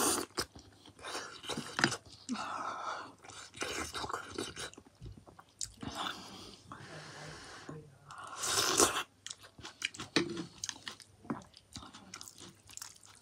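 Close-miked eating sounds: chewing and slurping spicy noodle soup with a runny egg, sipping broth from the bowl and a spoon. There are many small mouth clicks and one longer, louder slurp about eight seconds in.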